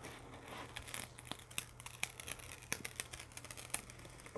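Faint crinkling and scattered small crackles of a diamond painting canvas's plastic protective film as it is handled and unrolled by hand.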